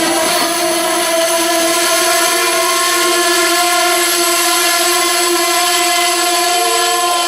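Locomotive air horn sounding one long, steady, loud blast.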